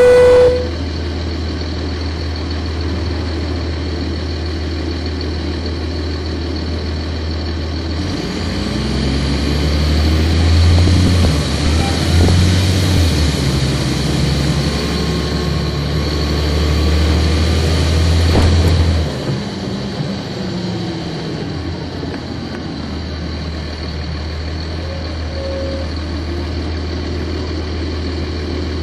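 The Cummins ISC diesel of a Nova Bus RTS city bus, heard from the rear of the bus. It idles, then pulls harder for about ten seconds, its note climbing in steps as the automatic transmission shifts. Just before 20 seconds in it eases off and settles back to a steady idle. A steady electronic tone cuts off about half a second in.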